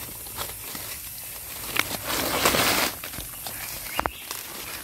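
Dry leaf litter rustling and crackling as hands dig wild mushrooms out of the forest floor, loudest in a stretch about two seconds in, with a few sharp snaps.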